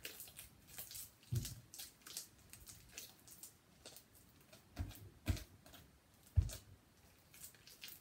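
Soft white slime made from soap and shaving cream being squished and stretched between the hands, with many small wet crackles and pops. There are a few low thumps, the loudest about six seconds in.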